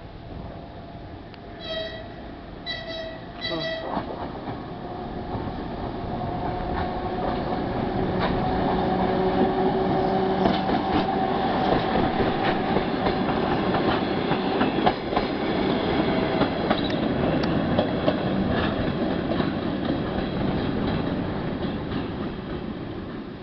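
Diesel locomotive 2TE116 gives three short horn blasts, then runs past hauling a suburban train. Its engine sound builds to a loud stretch, with wheels clicking over the rail joints, and eases slightly near the end.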